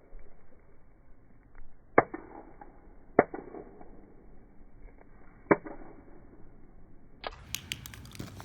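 Sharp knocks of a hard 3D-printed plastic cube being smashed against rock: three separate hits about a second or two apart, then a quick run of small clicks and taps near the end.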